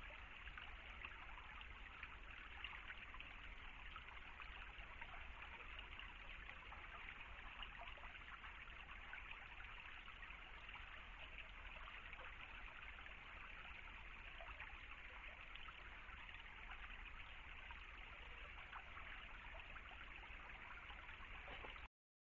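Shallow stream trickling steadily over stones, a quiet continuous splashing, with a steady low hum underneath. Both cut off suddenly shortly before the end.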